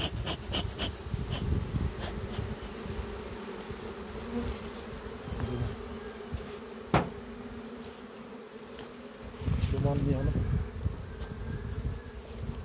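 Honeybees buzzing in a steady hum around an open hive being worked. In the first second or so a bee smoker's bellows puffs several times in quick, even succession, and about seven seconds in there is a single sharp tap.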